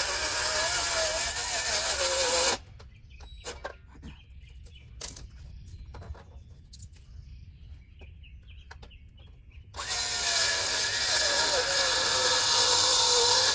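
Cordless power driver running screws into wood in two long runs, its motor pitch wavering under load. Between the runs come a few sharp knocks and clicks.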